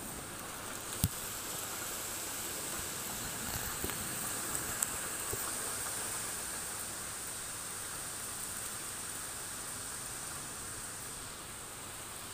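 Light rain falling on a wet flat roof and leaves, a steady soft hiss of drops. A single sharp click about a second in.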